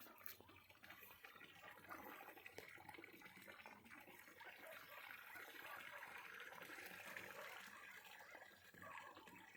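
Faint water sounds of grass carp feeding on grass at the surface: small splashes and sucking ticks over gentle lapping.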